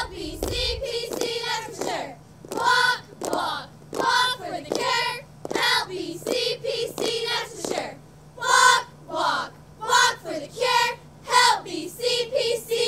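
A high-school cheerleading squad chanting a cheer together in girls' voices, in short rhythmic shouts, with hand claps.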